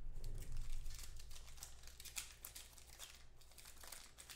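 Clear plastic wrapper of a trading-card pack crinkling and tearing as it is opened by hand: a rapid run of crackles that thins out near the end, over a low steady hum.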